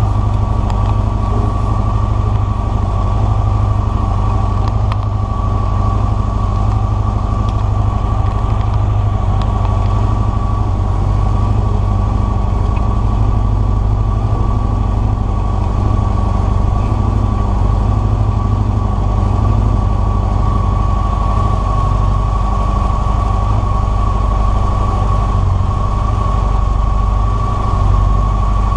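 Motorcycle engines idling steadily: a low rumble with a constant high whine over it that does not change.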